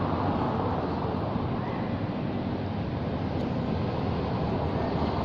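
Steady wind noise buffeting the microphone, an even low rumbling hiss with no distinct animal calls standing out.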